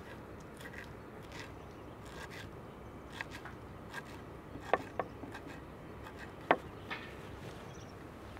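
Kitchen knife chopping fresh coriander on a wooden cutting board: irregular light taps, with a few sharper knocks on the board past the middle.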